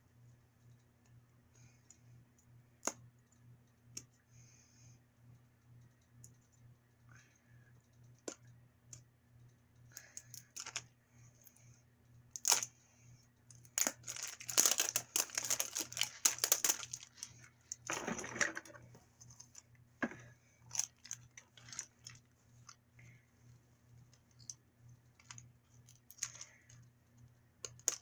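Plastic toy packaging being handled and torn open: scattered clicks and taps, with a burst of crinkling and tearing about halfway through, over a faint steady low hum.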